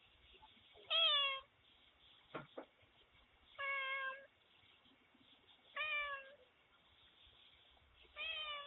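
A domestic cat meowing four times, about two seconds apart, each meow short and falling slightly in pitch. Two short clicks sound between the first and second meows.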